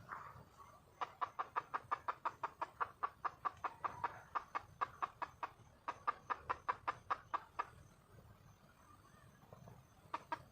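Red junglefowl hen calling for a male with rapid runs of short clucks, about five a second. A long run is followed by a brief pause and a shorter run, and another run starts near the end.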